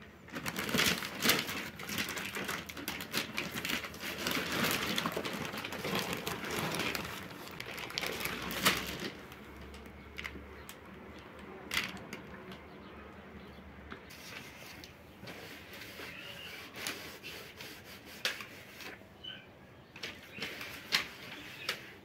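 Potting soil being handled: a plastic soil bag crinkling and crumbly soil scraped and pressed down by hand into a plastic plant pot. It is a busy run of rustles and small clicks for the first nine seconds or so, then sparser taps and rustles.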